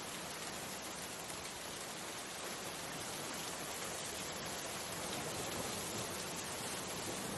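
Steady rain falling, an even hiss with no pauses.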